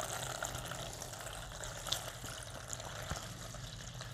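Thin stream of water poured from a watering can, splashing steadily into a shallow plate of water over a few air plants (tillandsias), with a few faint drips.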